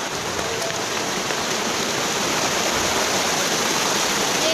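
Rushing water of a waterfall, a steady dense hiss that grows slightly louder.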